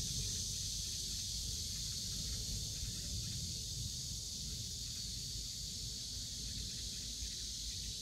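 Outdoor garden ambience: a steady high-pitched hiss of insects over a low, uneven rumble.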